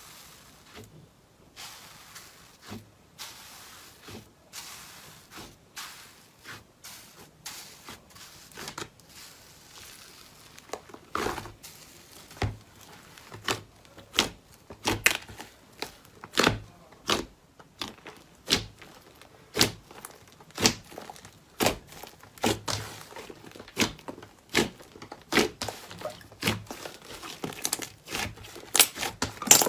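Slime being squeezed and poked by hand, a crackly squish with each press, about once a second, growing louder and a little quicker from about a third of the way in.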